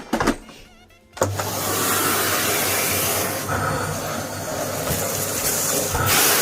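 Knocks and handling, then about a second in a Bosch Serie 2 bagless vacuum cleaner's motor switches on suddenly and runs with a steady hiss and hum, swelling and dipping a little as the nozzle works over a sofa.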